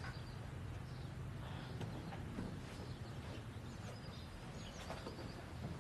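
Faint background ambience: a steady low hum with a few faint high bird chirps, most of them near the end.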